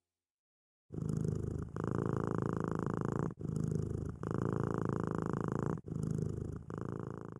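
A cat purring, starting about a second in, in alternating short and long breaths: three in-and-out cycles.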